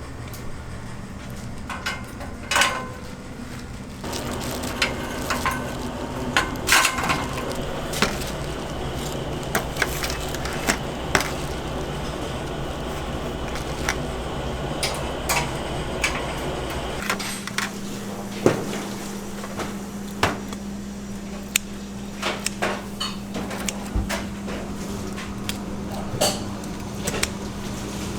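Kitchen work clatter: scattered knocks and clinks of utensils and containers over a steady machine hum, which changes to a higher, stronger tone about two thirds of the way through.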